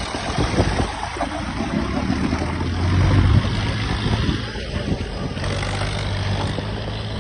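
A vehicle's engine running with a steady low hum, growing louder up to about three seconds in and then holding steady.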